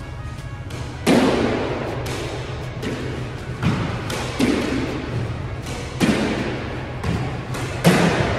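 Squash ball being hit with a racquet and striking the court walls, about seven sharp smacks a second or so apart, each ringing out in the court's echo; the loudest come about a second in and near the end.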